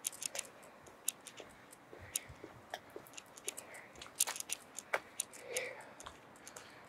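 Footsteps on a concrete sidewalk mixed with camera handling noise: a run of light, irregular clicks and ticks over a faint hiss.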